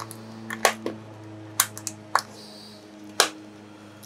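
Plastic case of a laptop battery pack being twisted to break its glued seam, giving a handful of sharp cracks and snaps at uneven intervals, the loudest about three seconds in.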